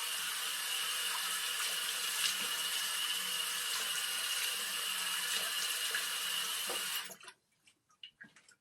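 Water running from a sink tap, a steady rush that cuts off suddenly about seven seconds in, followed by a few faint clicks.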